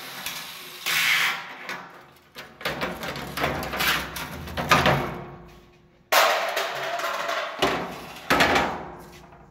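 Cut sheet-steel truck door tops clanking and rattling on a metal bench as they are picked up and handled, in irregular bursts.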